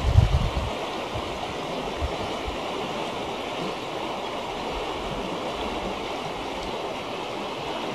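Steady rushing of a mountain river in spring flood, fast turbulent meltwater pouring over riffles. A low rumble of wind on the microphone dies away within the first second.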